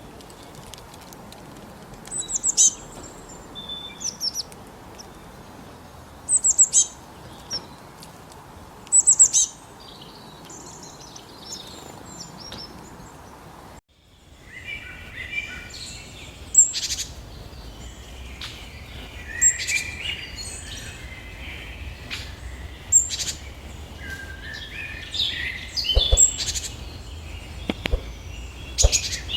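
Birds calling in two different recordings. First, short high calls that drop sharply in pitch come every two or three seconds over a steady hiss; after an abrupt cut about 14 seconds in, a busier chorus of piercing high notes and lower chattering, twittering calls.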